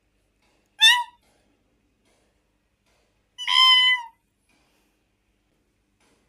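Kitten meowing twice: a short high meow about a second in, then a longer one a couple of seconds later.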